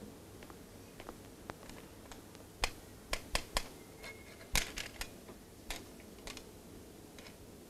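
A run of sharp, irregular clicks and knocks, thickest and loudest around the middle, over a faint steady hiss.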